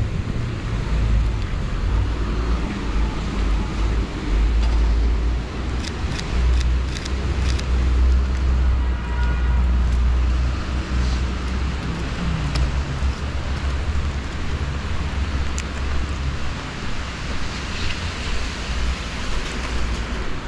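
Wet city street in the rain: a steady low wind rumble on the microphone over traffic noise, with car tyres hissing on the wet road. A quick run of clicks comes about six seconds in.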